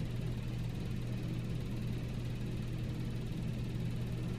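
Steady low background hum with a faint even hiss, unchanging throughout.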